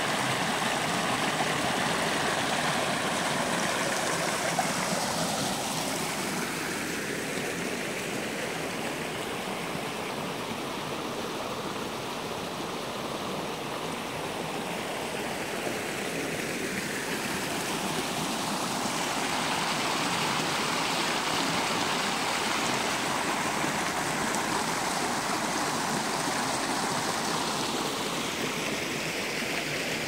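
Shallow river rushing over stones in a small rapid: a steady rush of water whose tone sweeps slightly a few times.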